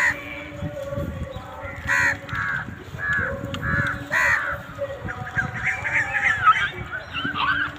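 Crows cawing: several harsh calls, the loudest at the start and about two and four seconds in, followed by a busy chatter of shorter, higher calls in the second half.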